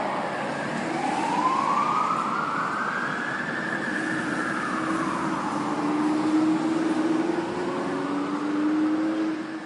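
Fire truck siren wailing, its pitch rising slowly and then falling in a long cycle, with lower steady tones underneath in the second half. It begins to fade right at the end.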